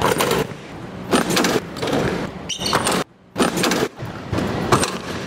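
Basketball play in a large, empty arena: a run of loud, echoing bangs of the ball on the rim, backboard and floor, each ringing on for about half a second, with a dunk at the start and a jump shot a few seconds later.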